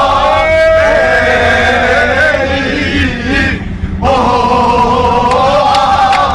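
A group of men singing a football supporters' chant in unison inside a crowded bus. The chant breaks off briefly about three and a half seconds in, then resumes loudly on a long held line.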